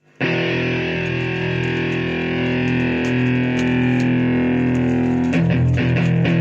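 Background music of distorted electric guitar: a chord rings out and is held, then about five seconds in it breaks into a fast, chopped rhythmic riff.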